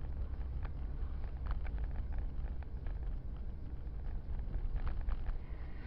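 Steady low rumble of a car driving, with faint scattered clicks.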